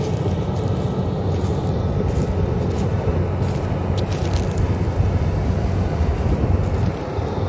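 Farm machinery engine running steadily under a rushing noise, with a few faint clicks.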